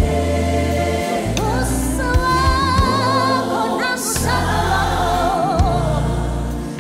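Gospel music: a choir singing held notes with vibrato over a bass line that changes note every second or so.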